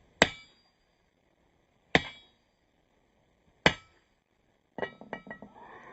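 Heavy forging hammer blows on hot steel over an anvil, drawing out a knife tang: three hard, ringing strikes about a second and three quarters apart, then a quick run of lighter clinks near the end.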